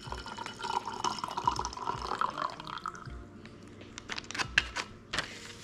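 Hot cocoa pouring from a plastic MRE hot beverage bag into a cup, a thin stream for about three seconds. Then come a few sharp drips and light taps.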